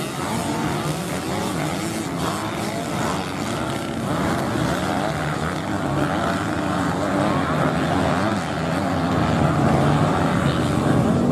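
A pack of motocross dirt bikes racing on a dirt track, several engines revving up and down and overlapping, growing louder near the end.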